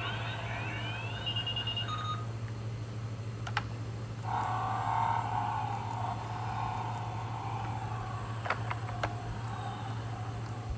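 Electronic sound effects from the Spin Master 'The Batman' Batmobile toy's small speaker in demo mode. It starts with a few rising glides and short beeps, then from about four seconds in a steady engine sound effect runs, with a couple of sharp plastic clicks.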